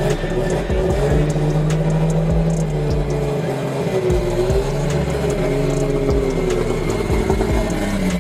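Toyota Supra's engine running at low revs as the car rolls slowly forward, its pitch rising and falling gently with small blips of the throttle.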